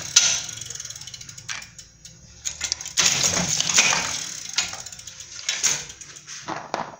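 Cashew-nut cutting machine running, its mechanism clicking and rattling as it cuts the nuts, louder for a couple of seconds starting about three seconds in.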